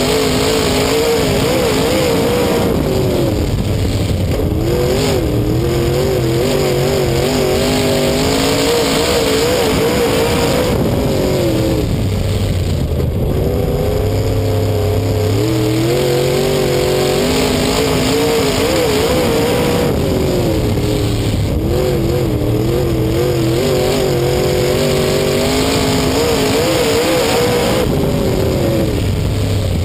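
Race car engine heard from inside the cockpit, at full racing load. The revs climb and drop off in repeating cycles every several seconds as the car accelerates down the straights and lifts for the turns.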